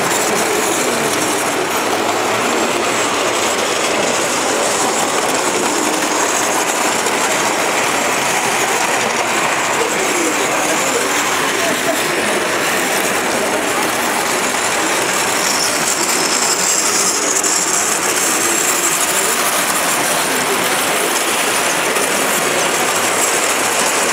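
Model trains running on the layout's track, a steady rolling rattle that does not let up.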